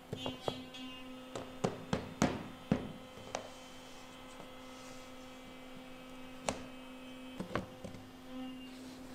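Curved plywood pieces clicking and knocking against each other and the plywood tabletop as they are handled and fitted together by hand: a quick string of sharp wooden clicks in the first three seconds and a few more near the end. A steady electrical hum runs underneath.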